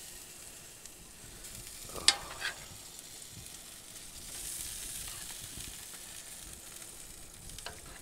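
Cream sauce and chicken sizzling in a cast iron skillet on a hot griddle while a metal spoon stirs and bastes; the spoon clinks sharply against the pan about two seconds in, then once more softly.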